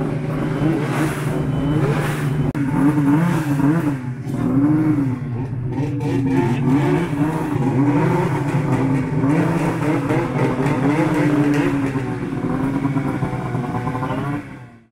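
Snowmobile engine running under a changing throttle, its pitch rising and falling about once a second.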